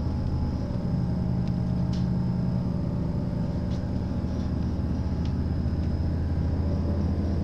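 Diesel engine droning steadily, a low even hum with several held tones, heard from inside a train carriage; a few faint clicks sound over it.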